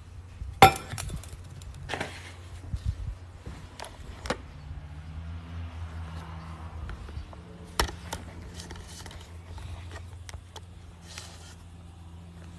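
Knocks and clatter of things being handled and set down as the phone is carried over and set up at the table: one sharp knock about half a second in, another near eight seconds, and lighter clicks between, over a steady low hum.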